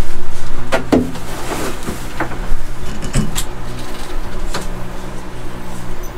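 Several sharp knocks and clunks as a wooden snake enclosure and a plastic tub are handled, over a steady low hum.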